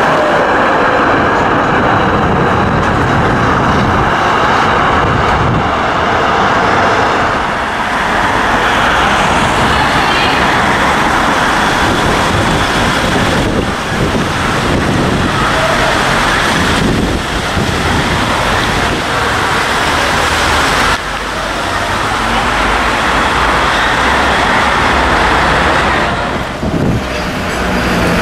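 Street traffic noise from trams and a trolleybus running by on city streets, with cars passing; it is loud and steady, with abrupt changes about 14, 21 and 27 seconds in where the recording cuts between shots. A yellow tram runs close past at the start.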